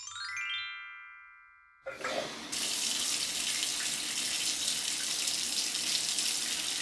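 A short rising chime run rings out and fades. Then, from about two seconds in, water sprays steadily from a salon sink sprayer onto a doll's hair, rinsing out a hair treatment.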